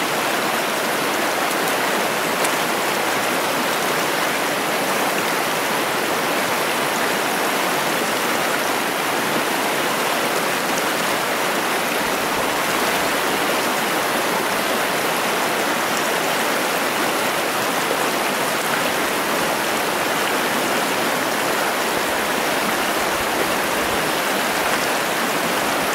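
Steady rush of a stream's fast water tumbling over rocks, even and unbroken throughout.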